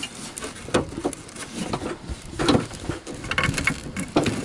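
Irregular knocks, clicks and scraping of hands working the blower motor loose from its housing on the firewall.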